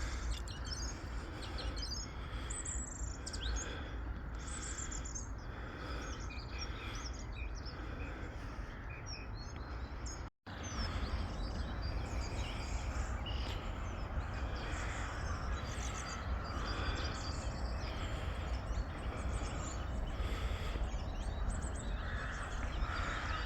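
Small birds chirping and singing, many short calls and quick whistled notes, over a steady low outdoor rumble. The sound drops out completely for a moment about ten seconds in.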